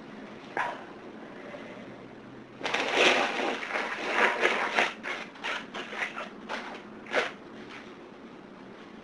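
A person with hay fever sniffling: one short sniff about half a second in, then a couple of seconds of dense rustling noise, then a quick run of short sniffs.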